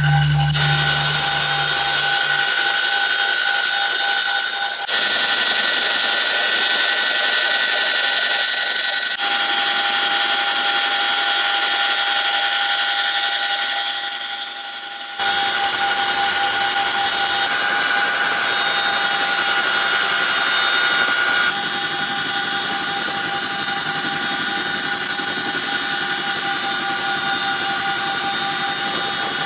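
CH-47 Chinook helicopter's twin turbine engines and gearboxes running: a steady whine of several high tones over a rushing noise, its tone and level shifting abruptly a few times.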